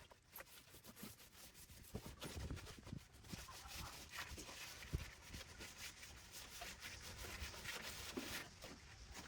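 Quiet, irregular rubbing and scraping with scattered light knocks, the sharpest about five seconds in.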